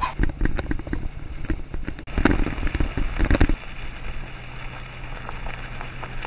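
Pickup truck driving on a dirt road: engine and road noise with rattles and knocks for the first three and a half seconds, then a steadier hum.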